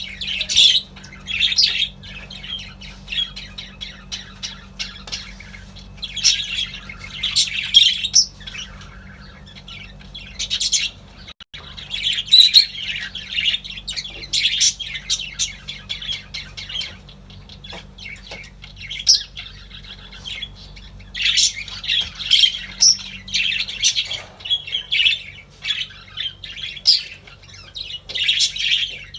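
Several budgerigars chirping and chattering in overlapping bursts, with loud spells every few seconds and quieter warbling between them. A faint steady low hum runs underneath.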